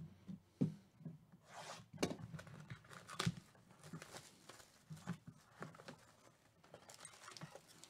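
A foil trading-card pack crinkling and tearing as it is pulled open by hand, a run of sharp, irregular crackles and short rips of the foil wrapper.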